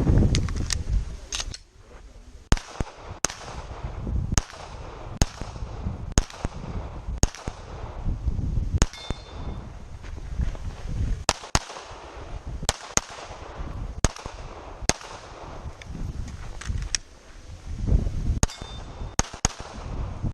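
Glock 22 .40 S&W pistol firing a timed course of fire: about two dozen sharp shots at an uneven pace, some in quick pairs, with pauses of a second or so between strings.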